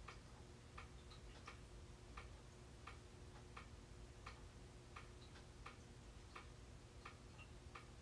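Ceiling fan running, faint: an even, clock-like tick about every 0.7 seconds over a low, steady motor hum.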